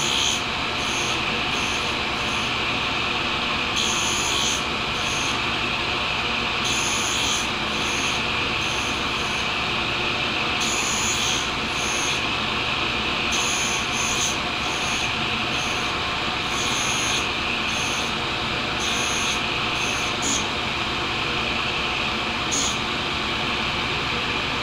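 Tool and cutter grinder grinding the carbide tip of a boring bar: a steady grinding hiss, with short brighter hisses coming and going about once a second that die out near the end.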